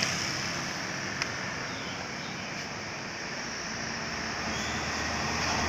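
Steady roadside traffic noise, an even hiss of vehicles with no horn melody, and one brief click about a second in.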